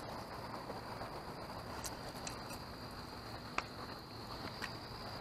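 Quiet outdoor background noise with a faint steady high-pitched whine and a few small clicks and taps of handling, the sharpest about three and a half seconds in.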